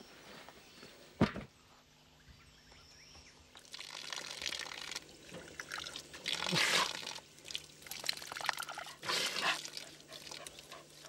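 A thin stream of water pouring from a tap under a water tank mounted on a four-wheel drive's bull bar, splashing onto hands and the dry ground, in surges as hands are rubbed under it. A sharp knock about a second in, before the water starts.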